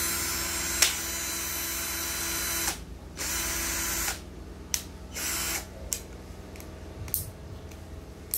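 JC Kawasaki cordless drill's motor running free with no load in trigger bursts: a long run of nearly three seconds with a sharp click about a second in, a run of about a second, then a brief blip. A few light clicks follow near the end.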